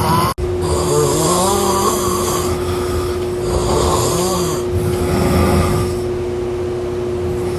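A person snoring loudly: three long snores whose pitch wavers up and down, over a steady hum.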